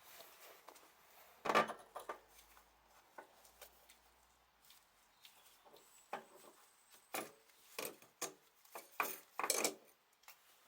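Metal tools and small engine parts clinking and knocking as the ignition stator plate is unscrewed and worked off a two-stroke motorcycle engine: one loud knock about a second and a half in, then a run of short clicks and taps in the second half.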